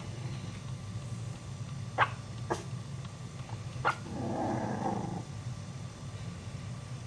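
Chihuahua puppies give three short, sharp yips about two seconds in, then a brief growl about four seconds in, over a steady low hum.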